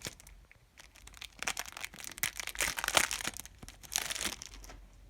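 Foil trading-card pack being torn open and crinkled by hand, a run of crackling rustles strongest in the middle.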